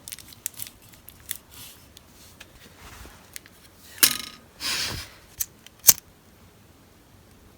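Small sharp clicks from handling objects, with a loud click about four seconds in followed by a short hissing rasp, then two more sharp clicks.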